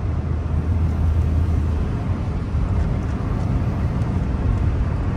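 Car driving along a city street, heard from inside: steady engine and road noise, with a low engine drone that fades out about two seconds in.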